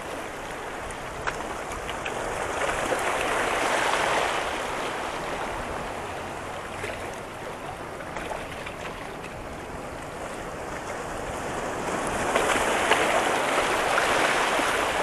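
Sea waves washing against a rock breakwater, swelling about three seconds in and again near the end.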